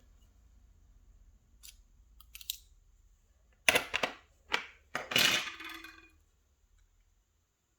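Small metal lock parts clicking and clattering on a hard surface as the lock cylinder is gutted, the core pulled out and its pins dropping out. A few faint clicks, then a quick run of sharp clicks and a short jingling clatter about four to six seconds in.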